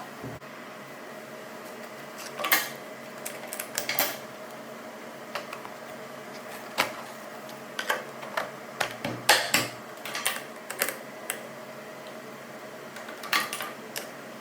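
Scattered sharp clicks and knocks, as of hard objects being handled and set down, in three clusters, over a steady hum.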